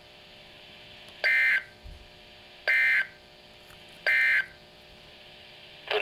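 Three short buzzy bursts of digital SAME code from a NOAA weather radio's small speaker, about a second and a half apart, with a fourth beginning at the very end: the Emergency Alert System end-of-message signal that closes a broadcast warning.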